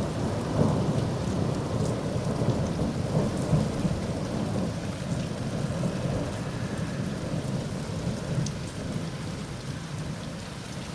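A long roll of thunder rumbling and slowly dying away, over steady rain falling.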